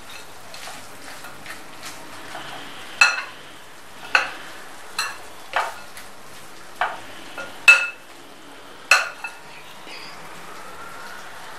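A spoon tossing bhel puri (puffed rice and crisp namkeen coated in chutney) in a glass bowl: a soft rustle of the mix, broken about once a second by seven sharp clinks of the spoon against the glass, each ringing briefly.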